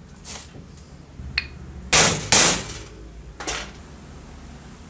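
Metal motor-housing parts of an old circular saw knocking together as they are fitted during reassembly. A few light clicks, one with a brief metallic ring, lead to two loud sharp knocks in quick succession about two seconds in, then one lighter knock a second later.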